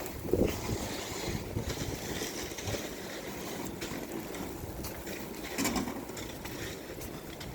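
Wind rumbling on the microphone, with a few scattered clicks and knocks.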